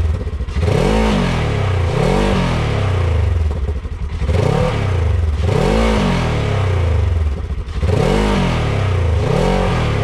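Polaris RZR S 1000's twin-cylinder engine idling and blipped on the throttle about six times, mostly in pairs, its pitch rising and falling back to idle each time. It is heard close to the tailpipe, with the spark arrestor fitted in the muffler.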